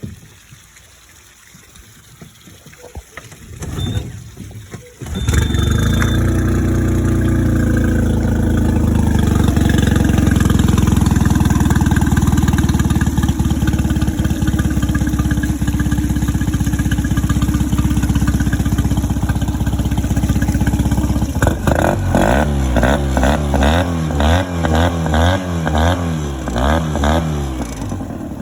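Mercury 15 HP four-stroke outboard motor starting up about five seconds in and running steadily. Over the last several seconds its pitch rises and falls again and again.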